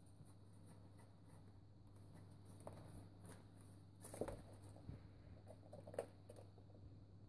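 Faint scratching and rustling of a kitten in a litter tray on newspaper, louder as it climbs out about four seconds in, then a sharp tap about six seconds in as it paws at a small ball on the wooden floor.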